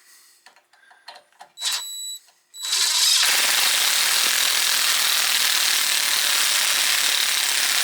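Impact driver hammering steadily for about five seconds as it forces a thread-cutting tap into metal, the job a drill driver was too weak for; a short burst comes about two seconds in, and the hammering cuts off suddenly.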